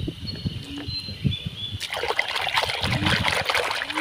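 A few soft knocks of plastic toys being handled, then, from about halfway in, soapy water splashing and sloshing in a plastic tub as a hand scrubs a toy animal in it.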